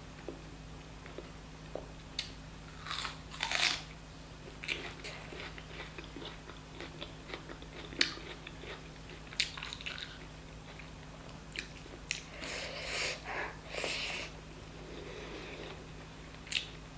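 Close-miked eating: a person biting and chewing chicken curry with rice, with irregular wet mouth clicks, smacks and short crunches. Bites come in busier clusters a few seconds in and again later.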